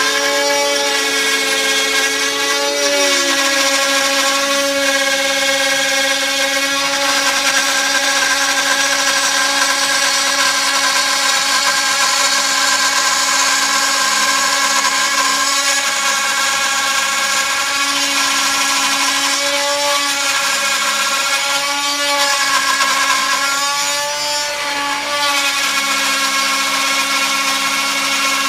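Desktop CNC router (TTA 3020) milling wood: the spindle runs with a steady whine while the cutter works the board. Several tones shift in pitch now and then as the motors move the head, one dropping about three seconds in and others wavering near the end.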